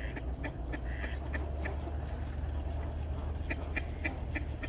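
Mallard ducks quacking in quick runs of short calls, one run at the start and another near the end, over a steady low rumble.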